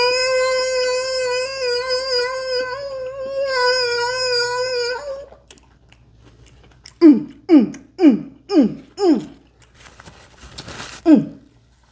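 A woman's voice vocalising with pleasure while eating: one long wavering note held for about five seconds, then, after a pause, five quick sounds that each slide down in pitch, and one more near the end.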